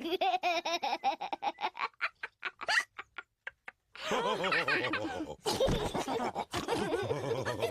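Cartoon pig characters laughing: a quick run of short laughing breaths at first, a few separate short sounds with pauses in between, then several voices laughing together from about four seconds in.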